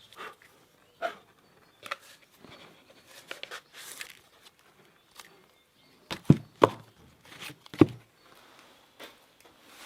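Irregular knocks and clatters of hard objects being handled, with three louder thuds about six to eight seconds in.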